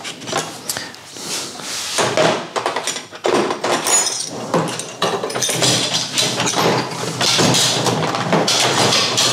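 Metal hand tools clattering and knocking in irregular bursts, with a busier stretch of rummaging and rattling in the second half.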